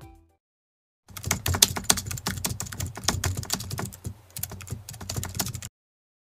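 Typing sound effect: a fast, uneven run of computer-keyboard key clicks that starts about a second in, eases briefly around four seconds, and stops shortly before the end. The last notes of intro music fade out at the very start.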